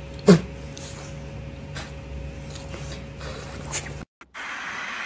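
A dog makes one short, sharp vocal sound, falling in pitch, over a steady low room hum, then a few faint clicks. Near the end it cuts to an even hiss of outdoor ambience.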